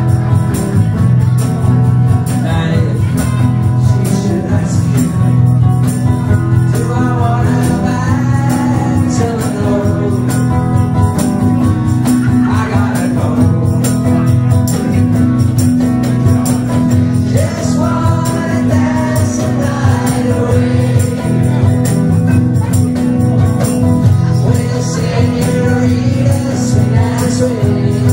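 Live band music: a singer over electric guitar with light percussion, steady low notes running underneath the melody.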